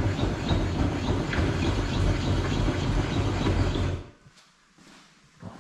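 Cheap benchtop table saw running and ripping a narrow strip off a piece of nylon, a loud steady machine noise. It cuts off abruptly about four seconds in, leaving near quiet with a faint knock.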